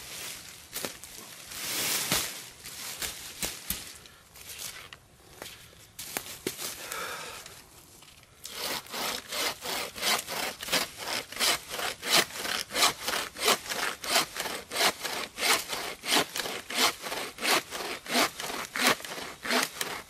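A wooden frame saw, its 530 mm blade tensioned by a twisted string, cutting through a branch. After a few seconds of irregular, hesitant strokes, it settles from about eight seconds in into steady, fast back-and-forth sawing of roughly two to three strokes a second. The wood is somewhat rotten.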